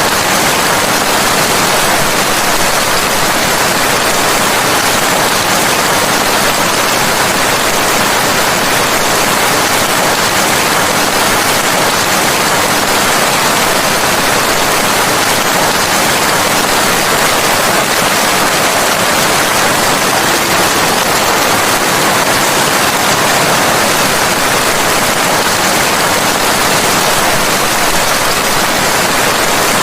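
Steady, even rain noise, a dense hiss with no separate drops or thunder standing out.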